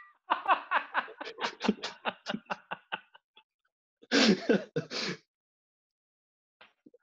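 Men laughing: a run of quick chuckles that thins out over about three seconds, then a louder breathy burst of laughter about four seconds in.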